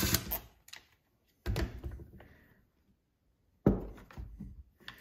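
A power drill's whir cuts off right at the start, followed by a few light clicks and two knocks, about a second and a half and three and a half seconds in, of tools and parts being handled during a chainsaw teardown.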